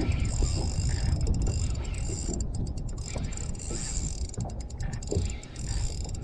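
Spinning reel being cranked, its gears ticking and whirring in several short spells.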